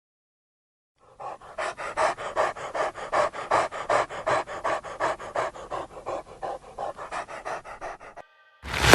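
A dog panting rapidly, about four breaths a second.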